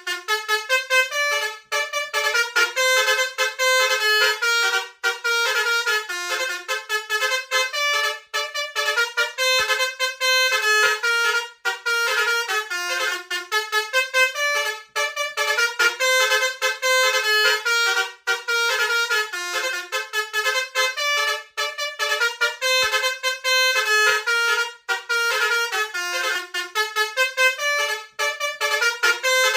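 Telolet musical bus horns (Basuri-type multi-tone air horns) playing rapid melodic tunes. The notes change several times a second, with brief gaps between phrases.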